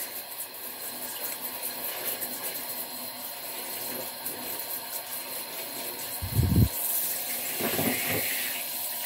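Hot water from a hand-held shower spraying steadily onto a potted succulent garden, a continuous hiss and splash on the leaves and tiles. About six seconds in there is a low thump as the pot is shifted on the tiled surface.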